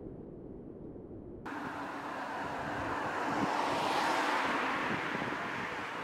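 A low rumble, then a rush of noise that starts suddenly about a second and a half in and swells, peaking around four seconds in before easing slightly.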